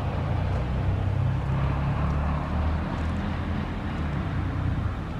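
Steady low outdoor rumble like a motor vehicle's engine running, with no siren or alert tones sounding yet.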